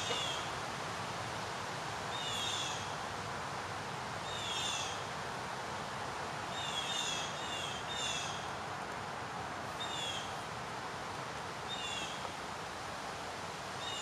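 Woodland birds giving short, falling calls, singly or two or three together, about every two seconds, over a steady hiss of forest background. The birds are agitated, giving what sound like alarm calls.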